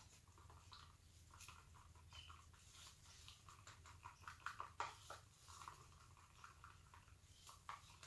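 Faint, irregular scrapes and taps of a stir stick against the side of a plastic cup as acrylic paint thinned with water is mixed, a little busier about halfway through.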